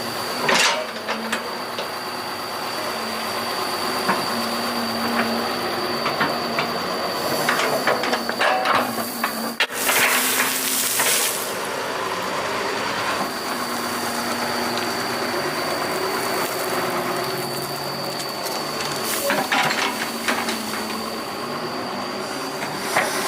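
Doosan 140 excavator working: the engine runs steadily under a thin high whine, with scattered metallic clanks and a brief rush of hissing noise about ten seconds in.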